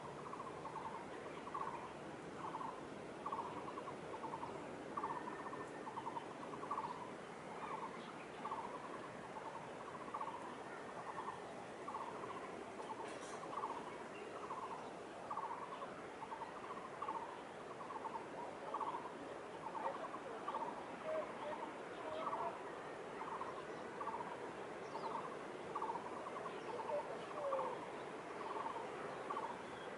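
A bird calling one short, pulsed note over and over, a little more than once a second, over a steady distant background hum.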